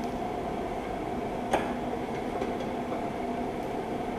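Steady mechanical hum of a fan-like machine, with a few light ticks and one sharp metallic click about a second and a half in, from a socket wrench working loose the 14 mm brake caliper bracket bolts.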